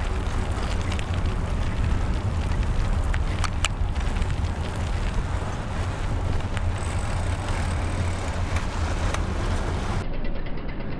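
Wind rush and rumble from a moving bicycle, with tyre and traffic noise from the cars alongside and a few sharp clicks near four seconds in. About ten seconds in the sound changes abruptly to a duller, thinner recording.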